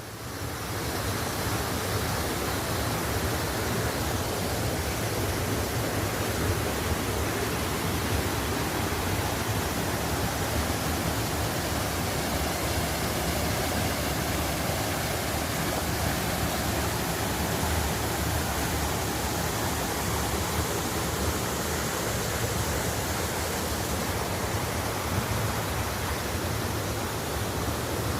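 Mountain valley stream, water rushing steadily, coming up about a second in and then holding at an even level.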